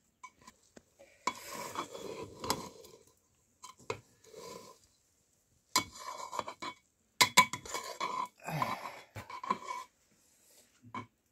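Dishes and utensils clinking and scraping in irregular bursts of clatter, with short pauses between.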